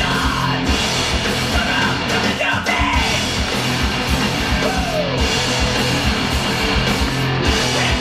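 Loud hardcore punk rock music with vocals, guitars and drums, played through Paradigm Monitor 9 hi-fi speakers in a home theater.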